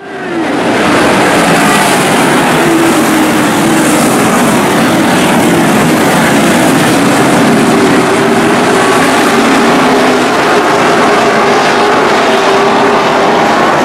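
A pack of asphalt late model stock cars racing at full throttle: many V8 engines running together, loud and steady, their overlapping notes rising and falling as the cars go through the turns. It fades in at the very start.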